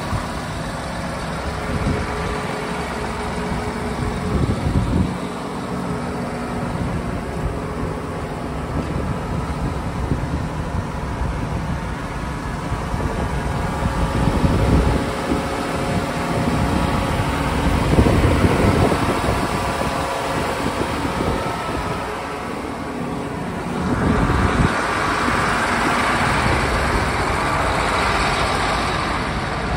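John Deere 8370R's 9.0-litre six-cylinder diesel engine idling steadily, with a few louder low swells. About three quarters of the way through, a steady hiss joins in over the engine.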